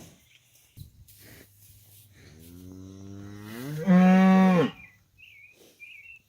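A cow gives one long moo. It starts low and soft, rises and swells to a loud call, then stops.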